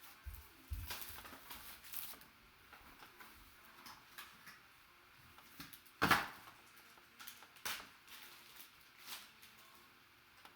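Trading cards and their packaging being handled: scattered light rustles and taps, the loudest about six seconds in.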